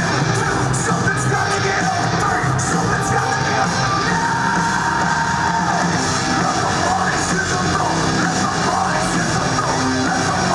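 Heavy rock walkout music with singing, played over a large arena's sound system, with a big crowd yelling and cheering over it.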